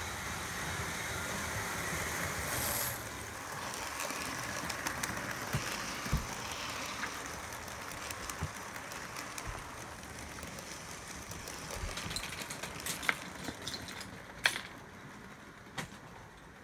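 Model train running past on layout track: a steady whirring hiss of motor and wheels that fades as it goes by, with scattered clicks of wheels over rail joints and a few sharper clicks near the end.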